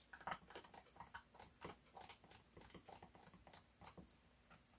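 Faint, irregular scraping and ticking of a wooden stir stick against the sides of a small plastic mixing cup as thinned resin sealer is stirred.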